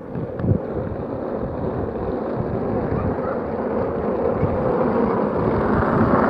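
Steady rushing wind noise on a phone microphone that is moving down the street, slowly growing louder.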